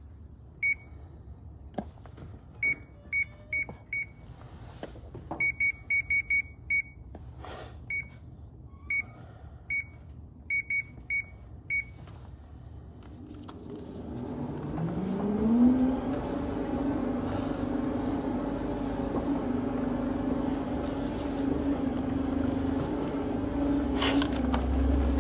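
Stair-climber machine's console beeping with a string of short button-press beeps, then its drive motor starting up: a hum rising in pitch for about two seconds, then running steadily.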